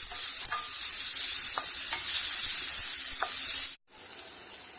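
Chopped onions and slit green chillies frying in hot oil in a pan: a steady sizzle with a few light clicks as they are stirred. Near the end the sizzle cuts out for an instant and comes back quieter.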